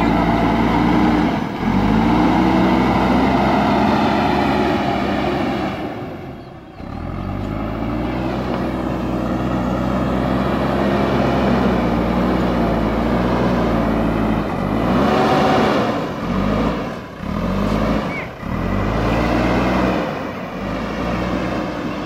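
JCB backhoe loader's diesel engine working under load, its pitch rising and falling over and over as the loader bucket pushes soil. The sound drops away briefly a few times, around 6–7 s and again between 16 and 18 s.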